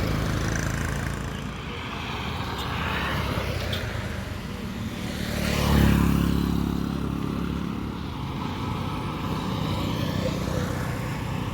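A motor vehicle passes close by about halfway through, its engine rising to a peak and then fading, over steady street noise.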